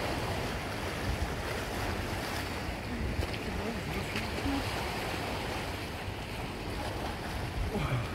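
Sea surf washing steadily against the rocks below, with wind rumbling on the microphone.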